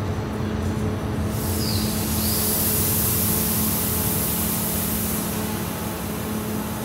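VB2N double-deck commuter train coming to rest, with a steady low hum from the train. About a second in, a loud hiss of compressed air starts, lasts about four seconds and fades.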